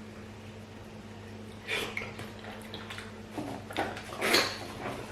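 Eating at the table: a handful of short clinks and scrapes of bowls and dishes as fufu is eaten with soup, the loudest about four seconds in.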